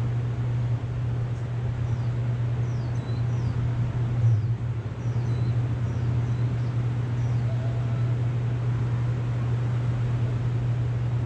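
Small birds giving short, high, falling chirps, several in a row through the first seven seconds or so, over a steady low rumble.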